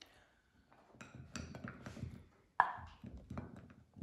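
Wooden spoon scraping and knocking against a non-stick frying pan as honey-coated fried dough balls are pushed out onto a ceramic plate: a run of irregular small clicks and taps, with one sharper knock about two and a half seconds in.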